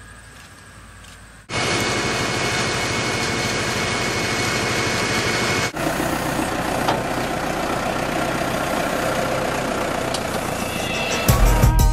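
Tractor engine running steadily while its front loader works in mud. It comes in suddenly after a quieter first second and a half, and music with a beat starts just before the end.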